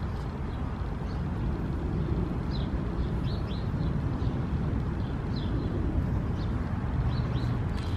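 Steady low outdoor background rumble with faint, short high bird chirps about six times.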